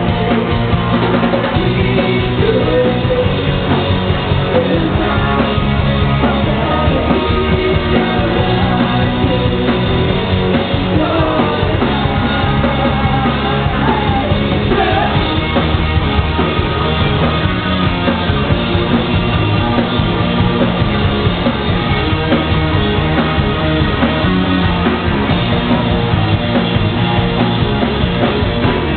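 A rock band playing live, with electric guitar and electric bass under a sung vocal, at a steady loud level throughout.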